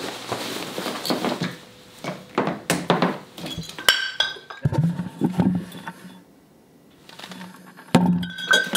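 Cloth rustling as a jacket is pulled on, then glass clinks with short ringing from a liquor bottle and shot glasses, about four seconds in and again near the end.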